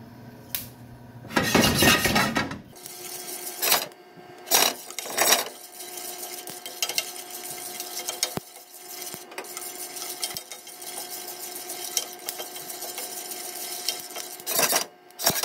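Roasting coffee beans stirred and scraped with a wooden spoon in a nonstick pan, with several loud rattling strokes and many small pops as the beans crack. A steady fan hum sets in about three seconds in.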